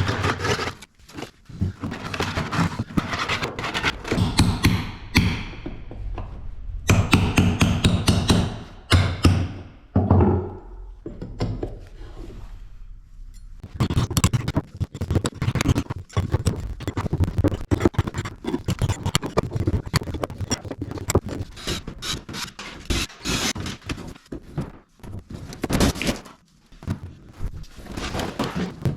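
Hand carpentry work on wood: irregular knocks and thunks mixed with stretches of scraping, with a quieter pause about eleven seconds in.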